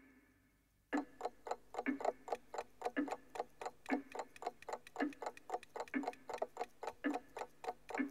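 Clock ticking, starting about a second in: a dense run of overlapping ticks at about four a second, with a heavier tick roughly once a second.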